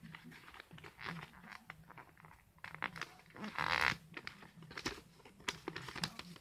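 Close handling noise: rustling, crinkling and small clicks, with one louder rustle a little past the middle.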